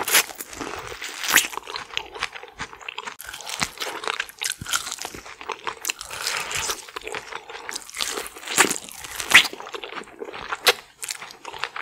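Close-miked eating sounds of saucy seafood boil being bitten and chewed: irregular wet crunches and mouth clicks, the loudest crunches about two thirds of the way through.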